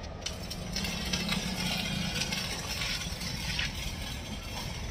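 Electric arc (stick) welding crackling and sizzling as a bracket is welded onto a steel tractor bumper, running for about three seconds before the arc stops.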